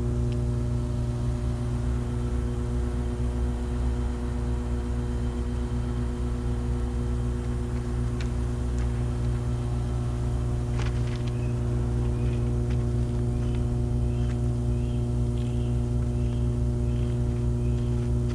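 Steady electrical hum of substation power transformers, a low drone with several higher overtones. In the second half a hawk nesting in the substation gives a faint run of short, high, repeated calls, about two a second.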